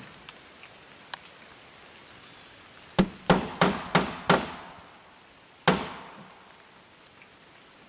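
Hammer blows driving nails into aluminum fascia trim: five quick strikes about three seconds in, then a single harder strike a little over a second later, each with a short metallic ring. Light rain patters faintly throughout.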